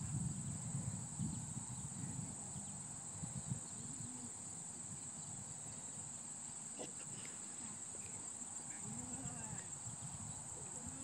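Crickets chirring in a steady, unbroken high-pitched trill, with a faint low murmur in the first few seconds.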